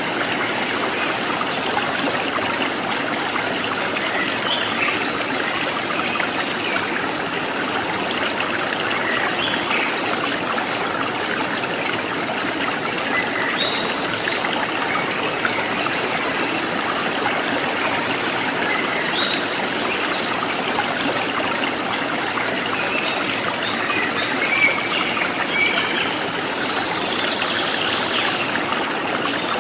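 A forest stream trickling and splashing steadily, with short bird chirps dotted through it, more of them in the second half.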